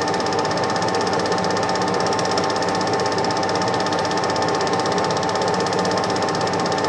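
Super 8 film projector running, its shutter and claw mechanism making a steady, rapid, even clatter with a constant hum.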